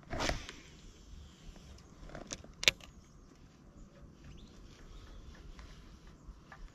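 A cast with a Shimano Calcutta Conquest 101 baitcasting reel: a swish as the rod comes forward and line pays out, then two sharp clicks a little under three seconds in as the reel is engaged, followed by faint handling of the reel.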